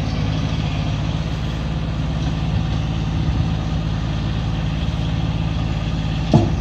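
A large engine running steadily at a low, even pitch, like a truck or tractor idling. A brief sharp sound cuts in just before the end.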